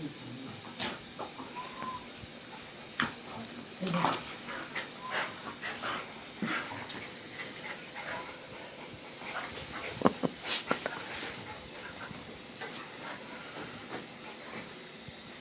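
Two dogs play-wrestling: irregular scuffling with short dog vocal sounds scattered through, in louder flurries a few seconds in and again about two-thirds of the way through.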